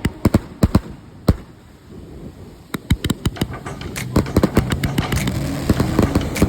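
Firecrackers going off in an irregular string of sharp pops and cracks, a few scattered at first, then a short lull, then a dense rapid run through the second half.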